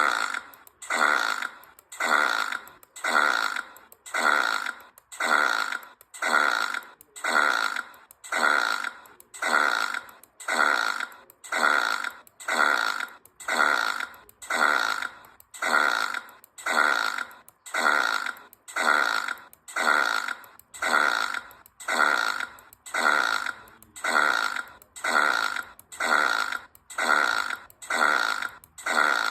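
An animated meerkat character's short belch, played again and again as an identical loop about once a second. Each belch starts sharply and quickly fades.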